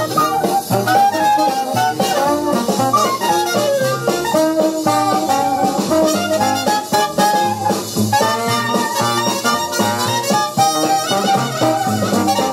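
Instrumental music with a steady beat, played from a stereo demonstration record on a Magnavox solid-state portable record player and heard through its speakers.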